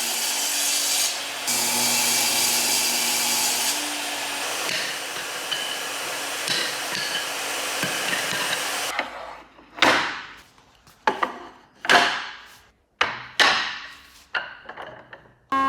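A power tool runs steadily for about nine seconds and then stops. About seven separate sharp knocks on wood follow, struck at uneven intervals, typical of mallet blows in hand joinery.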